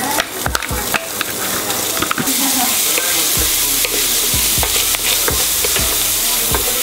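Diced pancetta sizzling in hot oil in a stainless steel frying pan as more is tipped in and stirred with a wooden spoon; the sizzle grows louder about two seconds in, with clicks and knocks of the spoon and meat against the pan.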